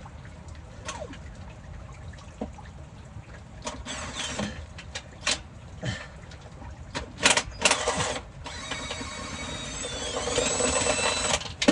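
Scattered sharp metal knocks and clanks from work on a truck's drivetrain. About eight seconds in, a small motor whine rises in pitch for a couple of seconds, then holds steady.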